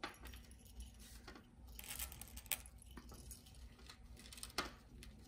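Faint, scattered light clicks and rustles of hands pressing candy-coated chocolates onto cornflake cookies on a parchment-lined metal baking sheet.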